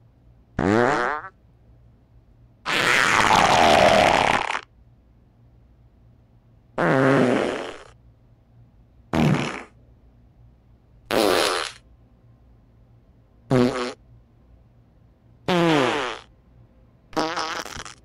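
A series of eight separate farts with short quiet gaps between them. Each is a pitched, buzzy blast, and a long one about three seconds in lasts around two seconds.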